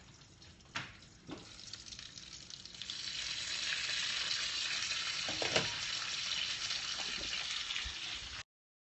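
Strips of bacon frying in a pan: a steady sizzle, faint at first and growing louder about three seconds in, with a couple of light knocks near the start. The sound cuts out abruptly near the end.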